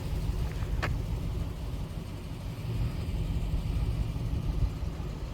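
Steady low rumble of a car running, with a single short click a little under a second in.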